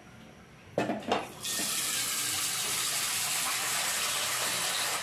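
Two short knocks, then water running steadily from a tap to fill a wok with water for boiling, cutting off sharply near the end.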